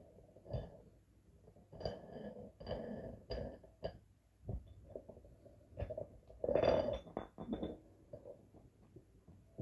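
Dumbbell weight plates and a threaded spin-lock bar being handled: a string of knocks and clinks, some with a brief ringing, and a louder cluster of clanks about two-thirds of the way in.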